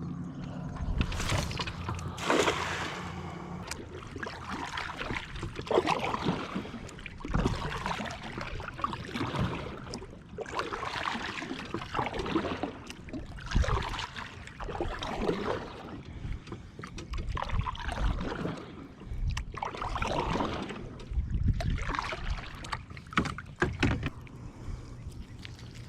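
Kayak paddle strokes: the paddle blades dip and pull through the water in an even rhythm, a splashy swoosh about every one and a half seconds.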